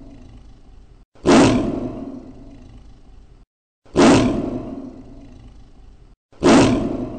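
Tiger roar ringtone: the same recorded roar looped over and over. Each roar starts sharply and fades over about two seconds, then a brief silence follows. A fresh roar begins about a second in, again near the middle, and again near the end.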